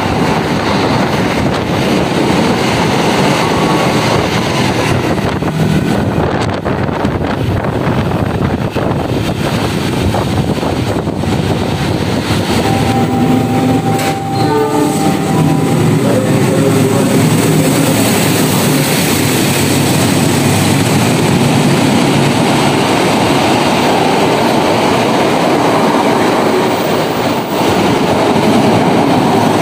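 Passenger trains running fast past a station platform: an electric commuter train rushes by with loud wheel and rail noise. About fourteen seconds in, a locomotive horn sounds briefly in a few tones as a locomotive-hauled intercity train approaches, and its coaches then run past with a heavy, steady rushing of wheels on rail.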